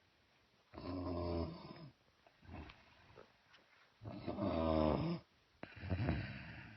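A sleeping person snoring: a short snore about a second in, then a longer, louder snore about four seconds in, followed closely by a third.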